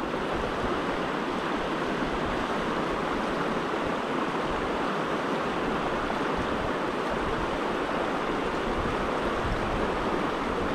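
Mountain stream water rushing steadily, an even hiss with no breaks.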